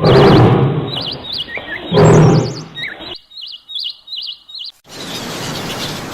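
Small birds chirping in quick warbling trills, cut into twice by a loud, low, roughly second-long animal call, about two seconds apart; the chirping stops near 5 seconds and gives way to a steady background hiss.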